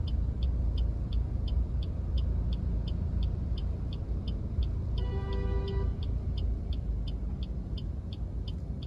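Car turn-signal indicator ticking about three times a second over the low rumble of an idling car and surrounding traffic, with a vehicle horn sounding once for about a second midway.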